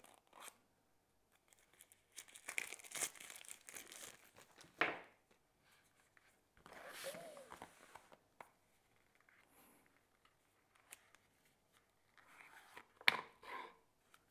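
Cellophane shrink-wrap being torn and peeled off a small cardboard card box, crackling in several spells, with a sharp snap near the end as the box is handled and opened.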